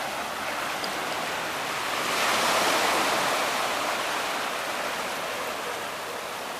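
Sea waves washing onto the shore: a steady wash that swells as a wave breaks about two seconds in, then slowly fades.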